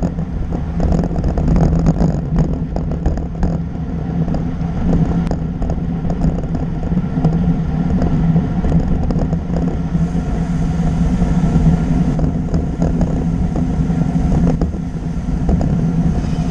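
Steady wind buffeting and road rumble on a bicycle-mounted action camera moving at speed, with small rattles and clicks throughout.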